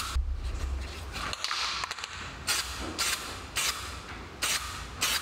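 Aerosol can of epoxy enamel spray paint hissing in short bursts as a cast iron part is coated. There is one longer spray about a second and a half in, then quick bursts roughly every half second.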